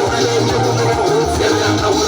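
Background music: a song with plucked guitar over a steady beat and bass line.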